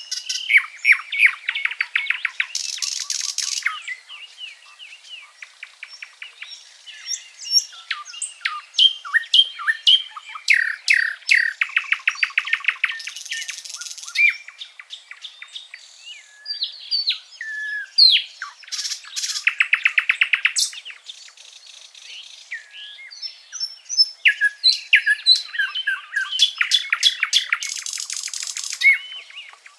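Songbirds singing and chirping. One bird repeats a fast trilling song phrase about every seven to eight seconds, with other short chirps and whistles in between.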